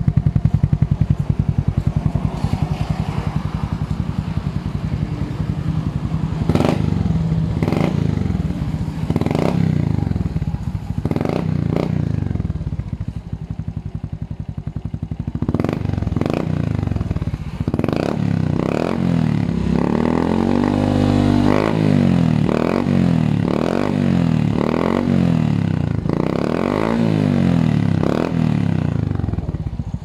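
Suzuki Smash 115 single-cylinder four-stroke engine running through a Spyker aftermarket exhaust. It idles steadily, then from about six seconds in is revved in short throttle blips over and over, with a longer climb and fall in revs a little past the middle.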